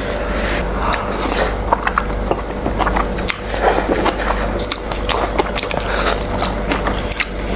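Eating noodles with chopsticks: slurping and chewing, with many short wet mouth clicks and smacks.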